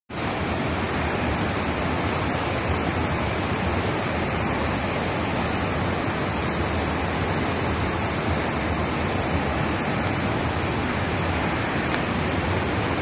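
The Beas River in monsoon flood: a fast, muddy torrent rushing past bridge piers in a steady, even roar.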